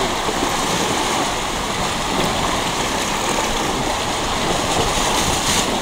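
Steady rushing of river water as a car drives through a shallow, rocky river.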